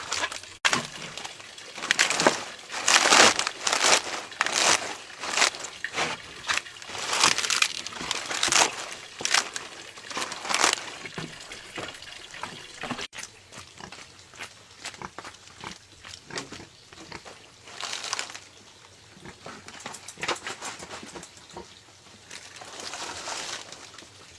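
Irregular rustling and crunching noises, a rapid run of short scrapes for about the first ten seconds, then fewer and farther apart.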